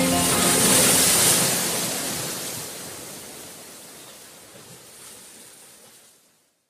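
A rushing, surf-like noise that swells about a second in, then fades steadily away to silence over about five seconds. The last tones of background music die out at the very start.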